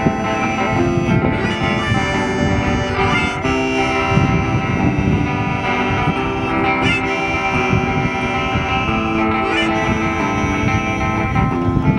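Electric guitar played through a small Vox amplifier in an instrumental passage of a song, with no singing.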